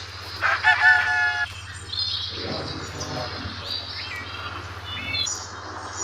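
A run of high, chirping, bird-like calls, some gliding in pitch and some held briefly, over a steady low hum.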